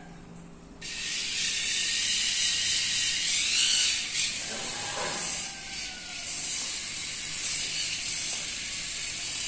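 Steady high hiss that starts abruptly about a second in and runs on almost to the end.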